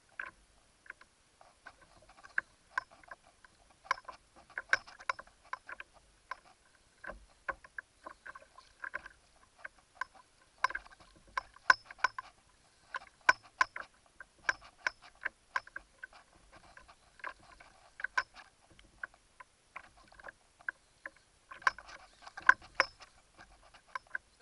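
Spinning reel clicking in irregular bursts while a heavy fish is played on a sharply bent rod.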